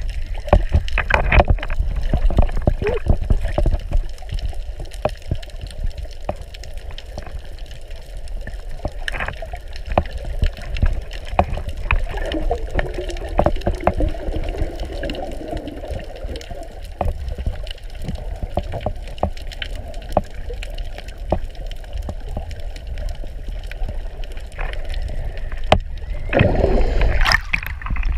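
Underwater sound picked up by a submerged camera: a steady low rumble of moving water with many sharp clicks and knocks. Near the end it gets louder and splashy as the camera breaks the sea surface into breaking waves.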